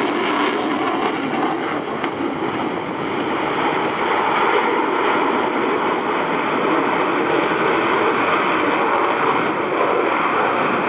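F-16 fighter jet in flight, its single jet engine making a steady rushing noise. The sharpest hiss thins out about half a second in.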